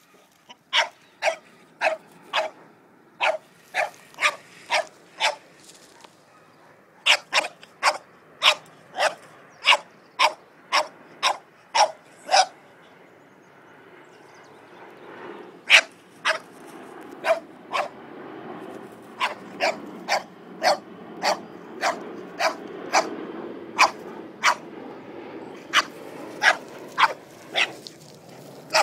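French bulldog barking repeatedly at a cat, with short sharp barks about two a second. The barking comes in three runs, pausing briefly twice.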